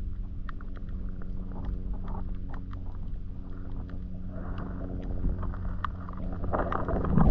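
A boat engine idling with a steady low hum, overlaid by many scattered sharp clicks, with louder noise swelling in near the end.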